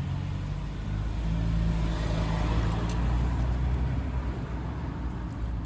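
A motor vehicle's engine running with a steady low hum that grows louder about a second and a half in, then eases slightly near the end.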